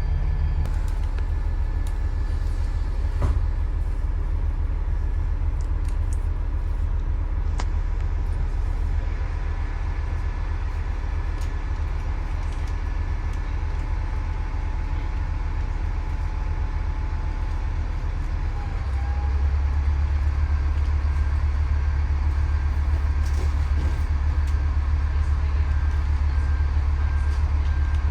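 Bus engine running with a steady low drone, heard from inside the bus. About two-thirds of the way through the drone grows louder and heavier as the engine takes more load, as when the bus moves off.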